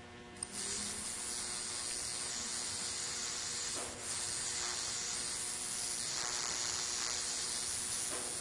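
High-voltage arc from a small plasma-globe flyback transformer, burning between a wire tip and the frayed strands of a stranded wire: a steady hiss that strikes about half a second in and briefly drops out around four seconds.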